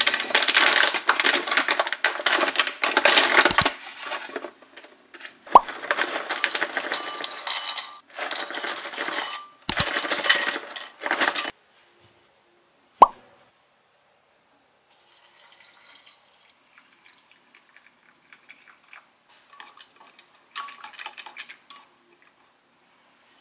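Kitchen prep sounds: water splashing into a bowl in three stretches of a few seconds each, with a few sharp single clinks of a dish, then faint handling sounds.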